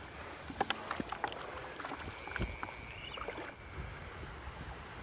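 Wind rumbling on the microphone, with a few short water splashes and clicks in the first second and a half from wading and handling the eel clamp in a flooded rice paddy. A faint thin whistle rises and holds for about a second and a half, about two seconds in.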